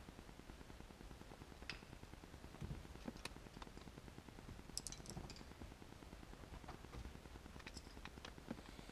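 Near silence: faint room tone with a few scattered, faint clicks.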